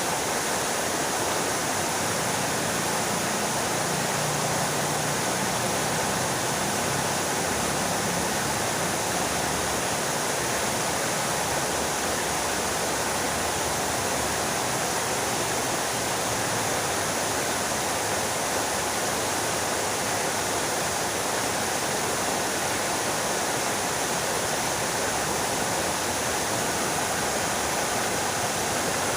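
Fountain water splashing down steadily in a continuous, even rush.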